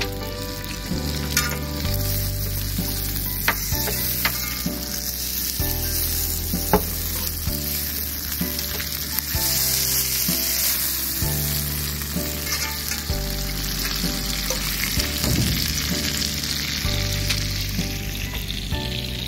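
Maple sap boiling hard in an open pan over a wood fire, a steady sizzle and bubbling with scattered sharp crackles, as the sap is reduced toward syrup. Music with a bass line that moves in steps plays underneath.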